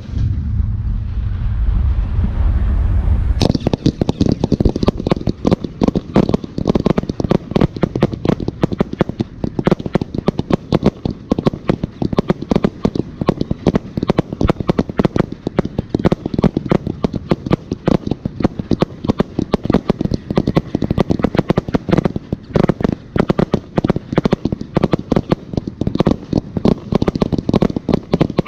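Fireworks going off in a dense, rapid barrage of bangs and crackles. It starts abruptly about three seconds in, after a low rumble.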